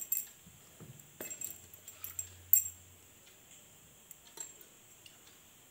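A few sharp metallic clinks and taps as ground rice paste is scraped and tapped out of a steel mixer-grinder jar into a steel bowl, the loudest about two and a half seconds in.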